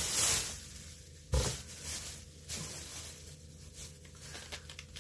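Thin plastic bag rustling and crinkling as gloved hands handle it, with a single sharp knock about a second and a half in.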